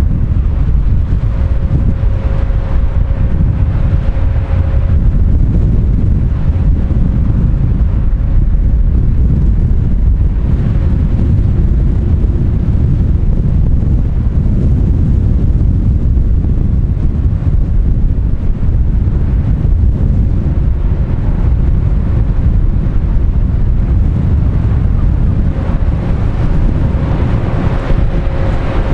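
Wind buffeting the microphone over a steady low rumble from the engines of a large tanker and its tugs. A faint steady hum is there at the start and comes back near the end.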